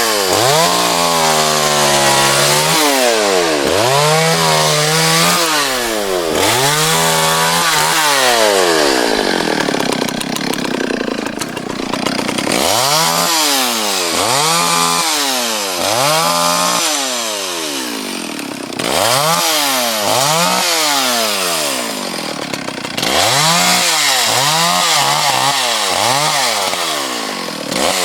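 60 cc two-stroke Stihl chainsaw running and revved over and over while cutting wood, the engine pitch swinging up and falling back every second or two. There is a spell of lower, rougher running around ten seconds in.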